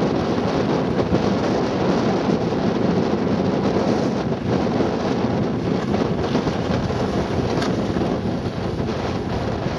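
Strong wind buffeting the camcorder's microphone, a loud steady rushing noise.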